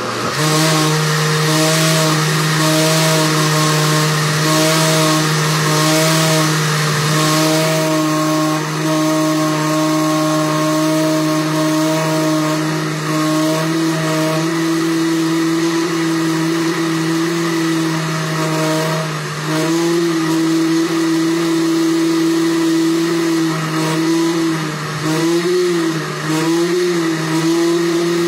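Countertop blender running without a break, blending a thick paste. Its motor hum is steady at first, then dips and wavers in pitch several times in the last ten seconds.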